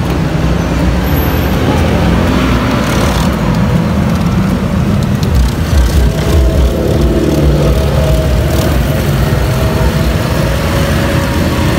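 Handheld battery-powered milk frother whirring in a plastic cup, whisking drink powder into hot water, over a steady low rumble of road traffic.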